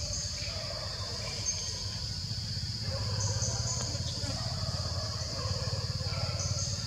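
Steady high-pitched insect drone with a continuous low rumble underneath.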